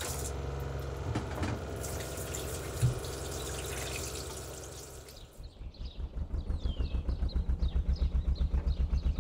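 Water running from a galley tap into the sink, over a steady low hum. About five seconds in, that gives way to a narrowboat's diesel engine idling with an even rhythmic chug, with birds chirping over it.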